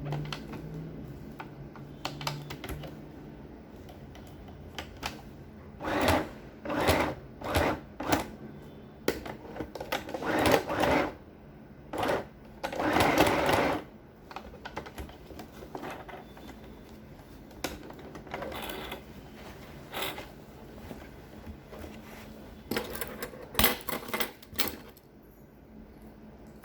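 Sewing machine stitching in a series of short starts and stops, with its longest run about 13 seconds in and a last cluster of short runs near the end. It is sewing a belt loop onto a trouser waistband and going back over the seam to double the stitch.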